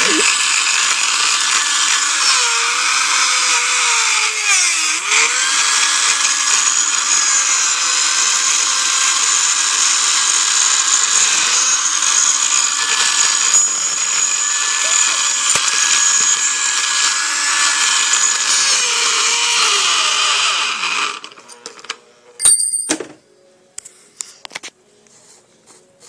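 Blender motor running continuously with a high whine, its pitch dipping briefly a few times as it churns paper scraps. It switches off after about 21 seconds, followed by a single click.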